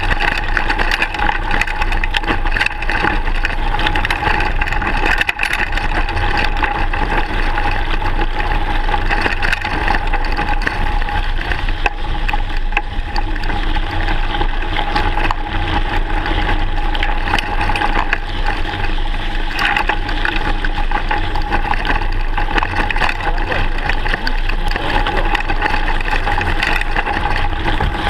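Mountain bike rolling over a loose gravel track: continuous crunch of knobbly tyres on stones and the bike rattling, with a steady low rumble of wind on the bike-mounted camera.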